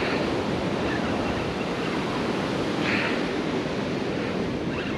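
Ocean surf breaking and washing up the beach in a steady rush.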